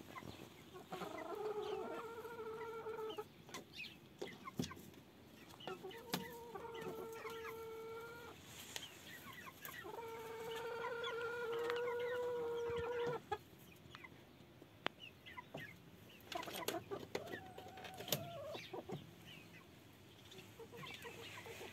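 Domestic hens in a coop giving long, drawn-out calls, one after another, with shorter calls later and a few sharp clicks between. The hens are impatient to be let out of the coop.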